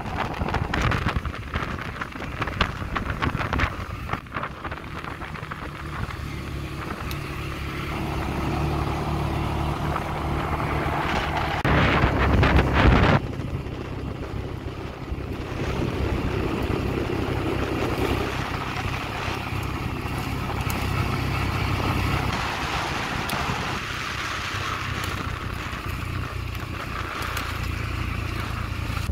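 CFMoto CForce ATV engine running while riding, its steady hum rising and falling with the throttle, with wind on the microphone. About twelve seconds in there is a louder, rushing stretch of a second or so.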